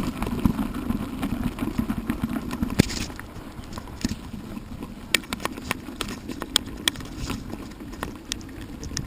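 Motorcycle engine running at low speed, louder for the first three seconds and then quieter, with scattered sharp clicks and rattles through the second half.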